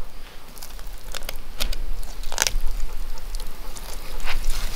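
Fixed-blade fillet knife cutting a king salmon fillet away from the backbone: scattered small crackling clicks as the blade runs over the bones, with one sharper click about halfway through.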